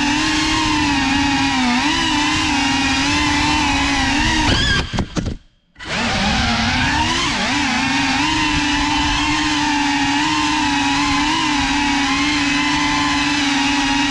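FPV quadcopter's electric motors and propellers whining, the pitch wavering up and down with throttle. About five seconds in the sound cuts out almost completely for about a second, then comes back at the same steady pitch.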